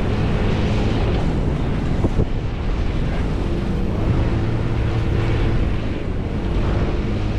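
Steady low engine drone, with wind buffeting the microphone and a brief knock about two seconds in.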